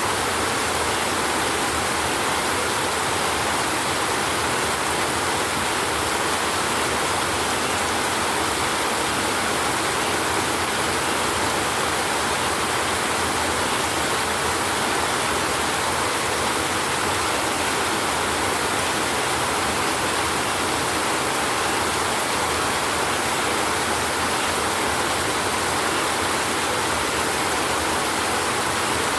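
Steady rain falling: an even, unbroken hiss that holds the same level throughout, with no thunder.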